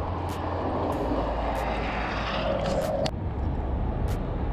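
Wind rushing over the microphone, with a low engine drone in the first second and a hiss that builds and then cuts off abruptly about three seconds in, plus a few faint clicks.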